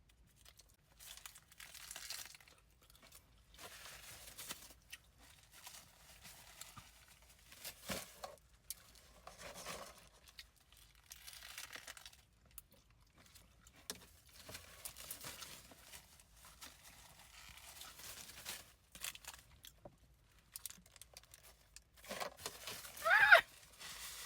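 Paper burger wrapper crinkling and rustling in irregular bursts, mixed with wet chewing of a lettuce-wrapped burger.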